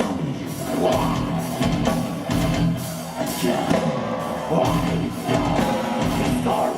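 Live doom/gothic metal band playing: distorted guitars, bass, drums and keyboards, with singing over them.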